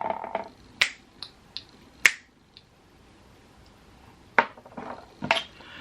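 A series of short, sharp clicks and taps from small hard objects being handled, about eight in all, with a pause in the middle.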